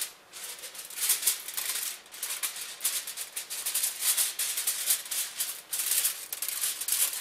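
Crinkling and rustling as a box of aluminum foil is handled and opened, in a run of short crackly bursts.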